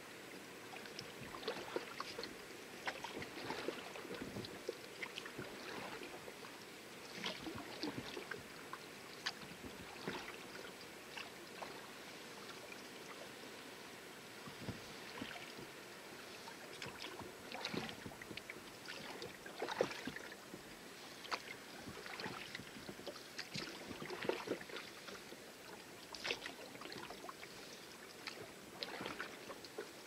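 Rowing a small rowboat with oars: water splashing and swishing as the blades dip and pull, water lapping against the hull, and short knocks at irregular intervals.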